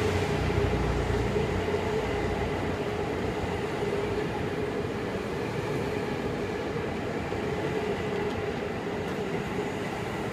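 Seibu 30000 series train cars rolling slowly past a station platform, hauled unpowered in a rolling-stock delivery: steady wheel-and-rail running noise with a steady hum. A heavier low rumble eases off after the first couple of seconds.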